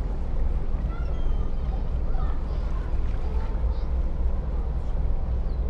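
Outdoor ambience: a steady low rumble, with scattered short chirping calls faintly above it.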